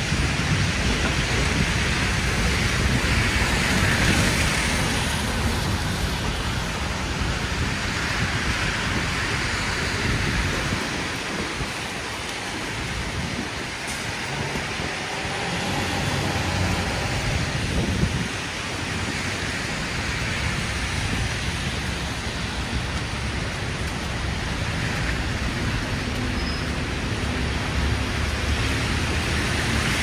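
Steady rushing hiss of a city street in a wet snowstorm, with a low rumble underneath: tyres on slushy pavement and falling wet snow. It swells and eases a little as vehicles pass.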